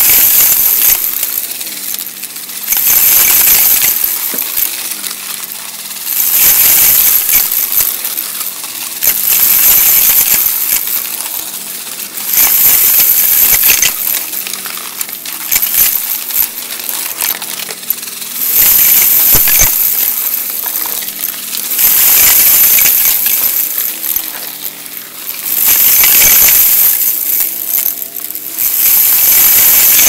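Vacuum cleaner running at full suction, its sound swelling and easing about every three seconds as it is pushed forward and pulled back in strokes.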